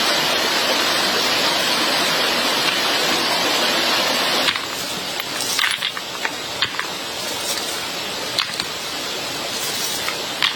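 A steady rushing noise cuts off suddenly about four and a half seconds in. Scattered light clicks and knocks follow over a quieter background.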